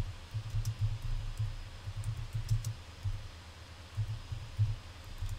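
Typing and clicking at a computer keyboard and mouse: a few sharp, light clicks scattered through, over irregular low, dull knocks.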